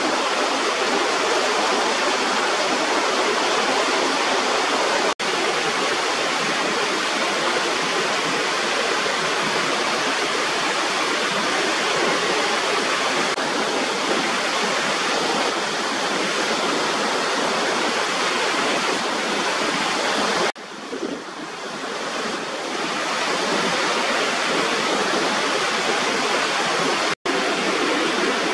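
Small waterfall pouring over a rubber weir, a steady rushing of water. It breaks off for an instant twice, and about 20 seconds in it drops suddenly and builds back up over a few seconds.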